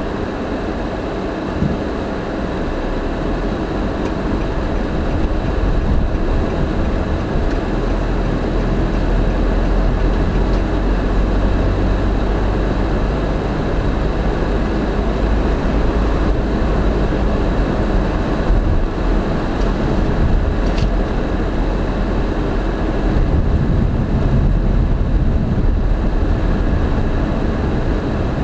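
Road and engine noise heard inside a moving car's cabin: a steady low rumble of tyres and engine, with a single knock about a second and a half in.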